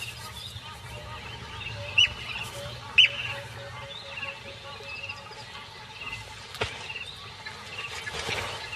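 White-crowned plover calling: a run of short repeated high piping notes, with two loud sharp calls about two and three seconds in.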